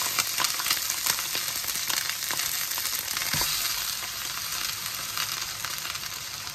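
Raw chicken livers sizzling in hot oil in a wok, a steady hiss with scattered small pops and crackles that slowly dies down.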